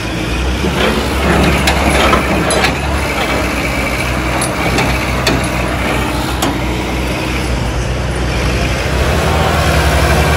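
Diesel engines of Hydra pick-and-carry cranes running steadily under load, with a handful of short, sharp clanks scattered over the top.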